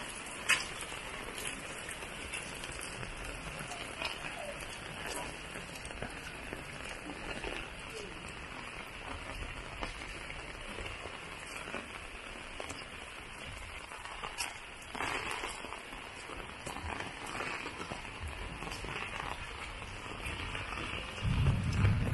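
Heavy rain falling: a steady hiss of rain with scattered drop ticks, and one sharp tap about half a second in.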